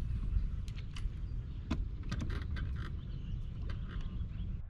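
Outdoor ambience aboard a bass boat: a steady low rumble with scattered light clicks and a few faint chirps.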